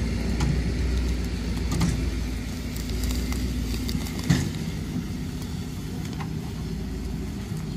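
A motor vehicle's engine running steadily at low revs while a car rolls slowly over dry leaves and brush, with a few sharp cracks of snapping twigs, the loudest about four seconds in.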